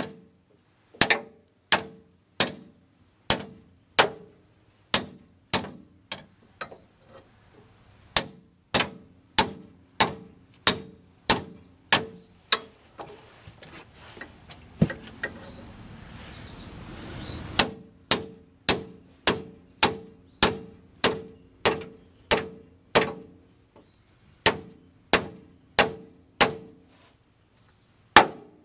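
Hammer striking a steel pickle fork (tie rod end separator) again and again to drive it into a rusted steering joint and split it apart. The blows come about three every two seconds as ringing metal clangs, and falter for a few seconds about halfway through.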